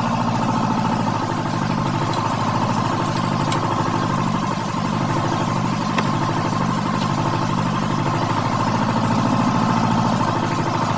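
A motor or engine running steadily, with a few faint clicks.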